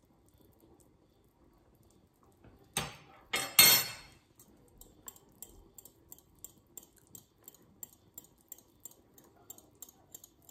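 Hot broth poured from a ladle into a ceramic bowl of egg yolk and lemon juice, a short splashing pour a few seconds in, then a fork whisking the mixture and clinking against the bowl about three times a second: the egg-lemon sauce being tempered with hot broth.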